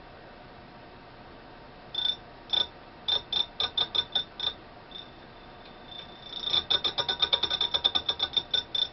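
Grinding wheel making short contact with a slowly turning wheel on a truing stand, a run of sharp, ringing ticks. The grinding wheel is catching only the high spots, so the wheel is not yet true. A few ticks come first, then the ticks speed up to about eight a second in the second half.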